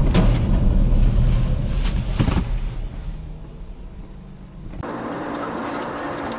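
Dashcam recording from a moving car on a highway: steady low road and engine rumble with two sharp knocks about two seconds apart. The rumble then fades, and about five seconds in the sound cuts abruptly to a lighter, steady road noise.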